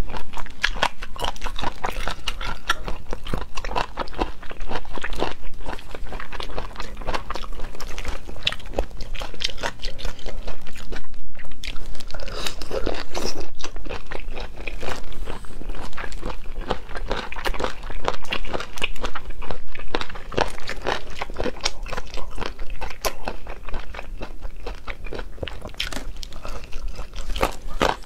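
Close-miked chewing and biting of deboned chicken feet in sauce: a dense run of crunchy, wet bites and chews, with a brief pause about eleven seconds in.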